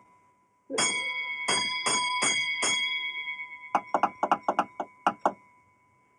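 Railway signal-box block bell ringing out a bell code, the signal that passes a freight train between boxes. There are about six ringing strokes, then a quicker run of shorter, fainter strokes, with the ring dying away near the end.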